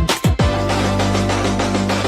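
Background music: electronic beat with kick-drum hits at the start, then a sustained bass note and held chord.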